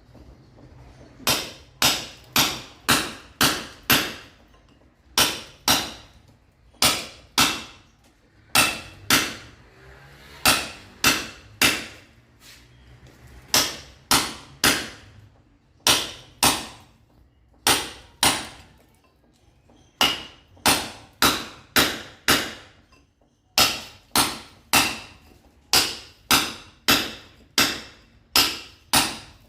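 Hammer blows breaking concrete: sharp, ringing strikes about two a second, in bursts of two to six with short pauses between.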